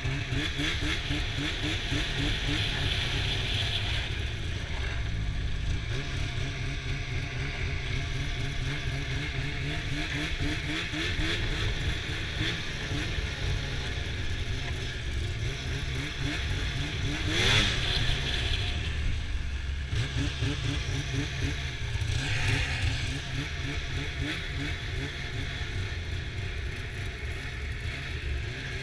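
2015 Arctic Cat ProCross 800 snowmobile's two-stroke twin engine running at part throttle, its pitch wavering as the sled moves, with a quick rising rev about two-thirds of the way through.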